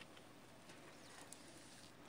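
Near silence: faint outdoor room tone with a few faint ticks.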